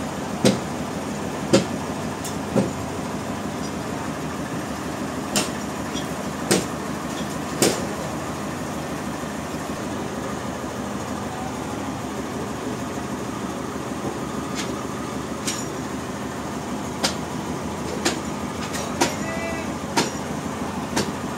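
Sawmill machinery running steadily, with sharp knocks and clacks at irregular intervals.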